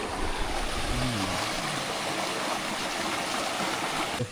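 River water flowing steadily, a continuous rushing noise.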